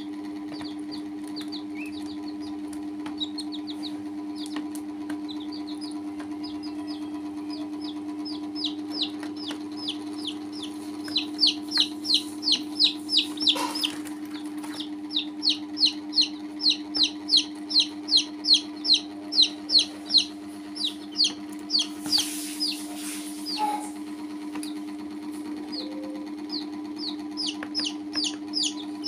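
Baby chicks and a duckling peeping: a long run of short, high, falling peeps, about two a second, loudest through the middle stretch, over a steady low hum.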